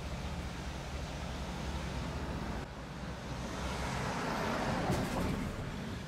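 Road traffic rumble. A vehicle passes, swelling louder from about three and a half seconds in and peaking near five seconds.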